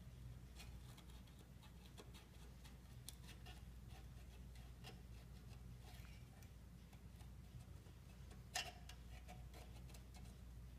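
Faint, scattered ticks of a palette knife working under lifting brass marquetry, with one sharper click near the end, over a low steady hum.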